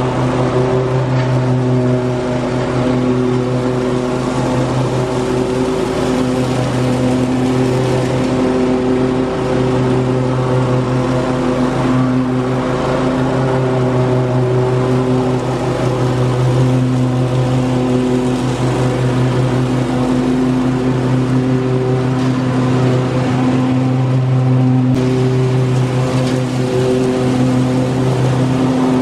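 Cub Cadet Ultima ZT1 zero-turn mower's engine running steadily under load with the deck blades engaged, cutting grass and mulching fallen leaves.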